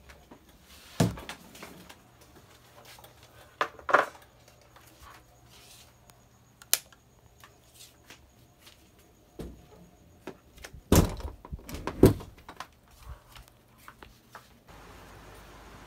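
Scattered knocks and clunks of household objects being handled in a small room, the loudest two about a second apart two-thirds of the way through, over a faint low hum.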